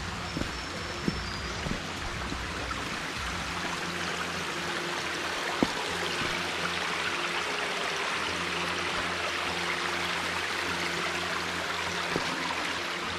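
Shallow mountain stream running over rocks, a steady rushing that grows a little louder about four seconds in. A few sharp knocks stand out, the loudest about five and a half seconds in.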